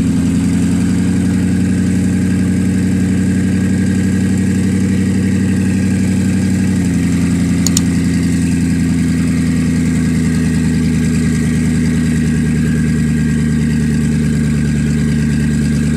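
Koenigsegg Regera's twin-turbo V8 idling steadily; the idle settles slightly lower about seven seconds in.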